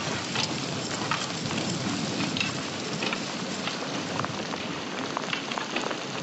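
Steady rain falling, with many scattered sharp drop hits over an even hiss.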